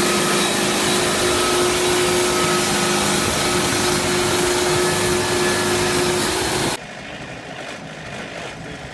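A sawmill running loud and steady, with a humming tone over the noise of the saw. About seven seconds in it drops suddenly to a much quieter steady engine sound.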